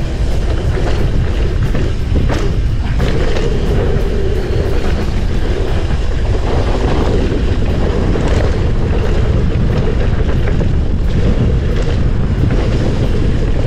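Mountain bike riding heard through an action camera: wind buffeting the microphone over steady rolling rumble from the tyres on the dirt and concrete path.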